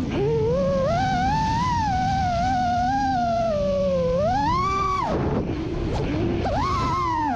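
FPV drone's motors whining, the pitch rising and falling continuously with the throttle. About five seconds in, the pitch drops away into a rush of air, then climbs sharply again.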